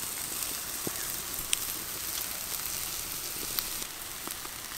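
Chicken leg pieces sizzling on a wire grill over a hot wood fire: a steady hiss with a few sharp pops.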